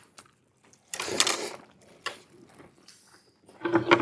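A short crackling, rattling burst about a second in, followed by a few faint clicks: noise of food and utensils while eating.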